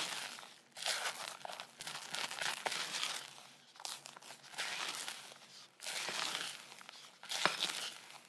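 Silicone spatula folding thick red velvet cake batter in a glass mixing bowl: wet swishing and scraping strokes, about one a second, with a sharp click of the spatula against the glass near the end.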